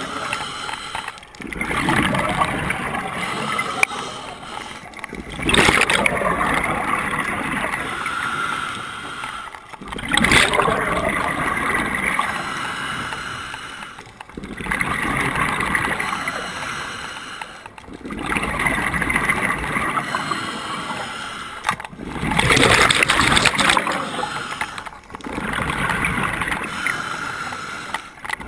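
Scuba diver breathing through a regulator underwater: a hiss of inhaling, then a gurgling rush of exhaled bubbles, repeating about every four seconds.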